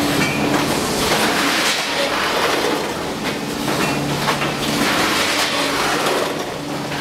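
Multihead weigher and incline belt conveyor running, with frozen breaded nuggets clattering over the stainless-steel feed pans and hoppers over a steady machine hum.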